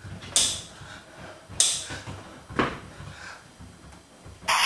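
Three slow footsteps on a hard floor, about a second apart, each a short sharp knock. Just at the end a loud steady rushing noise starts abruptly.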